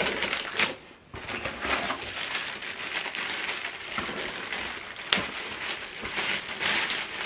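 Packaging crinkling and rustling as small soundbar accessories are unwrapped and handled by hand, with one sharp click about five seconds in.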